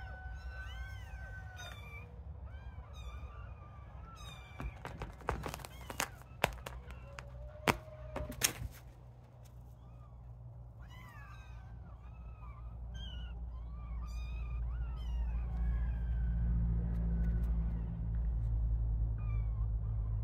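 Young kittens mewing over and over in short, high, thin calls. A few sharp clicks come between about five and eight seconds in, and a low rumble builds through the second half.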